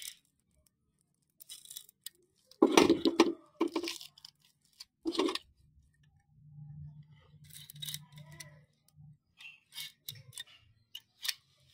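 Utility knife blade slitting the clear plastic wrap on a new linear sliding bearing block, in short scratchy tearing and crinkling strokes.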